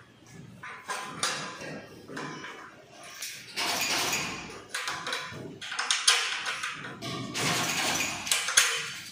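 Irregular metal clinks, knocks and scrapes from hand-fitting bolts and parts into the steel tube frame of a single parallel-bar dip station.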